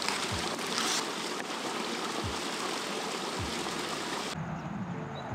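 Stream water rushing steadily, with a few soft low thumps. About four seconds in the rushing cuts off abruptly, leaving a quieter, duller background.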